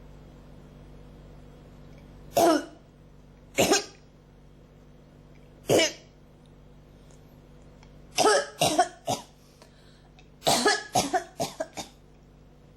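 A person coughing from an irritated throat: three single coughs a couple of seconds apart, then a quick group of three, then a run of about five rapid coughs near the end.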